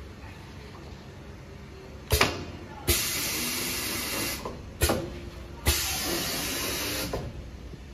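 HN-520G pneumatic cardboard grooving machine running two grooving cycles. Each cycle is a sharp clack with a short burst of air, then about a second and a half of steady hissing as the air-driven grooving carriage runs across the board.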